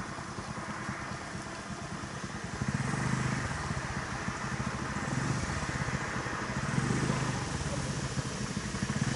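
A motor vehicle engine running at low speed, a steady pulsing rumble that gets louder about two and a half seconds in.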